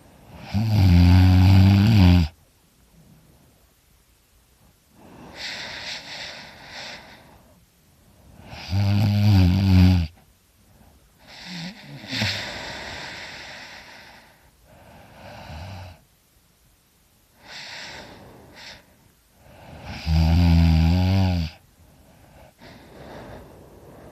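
A sleeping person snoring very loud: three loud, deep snores spaced about 8 to 12 seconds apart, with quieter breathy breaths in between.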